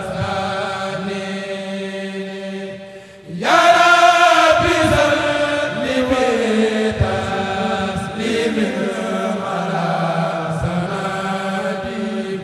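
A kourel chanting a Mouride khassida in Arabic, the voices sustained in long held lines. The chant breaks off briefly a little over three seconds in, then the voices come back in louder.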